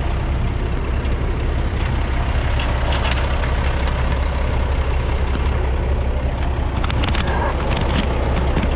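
Heavy equipment diesel engine running steadily, with a deep, even drone and a few light clicks about seven seconds in.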